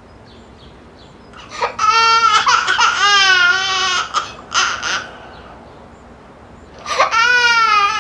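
A baby crying: a long, wavering wail starting about one and a half seconds in, a quick breath, then a second wail near the end.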